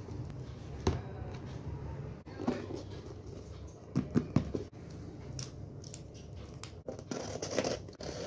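Hands handling a cardboard shipping box: scattered light knocks and rubbing rustles as it is moved and tapped, a small cluster of them about four seconds in.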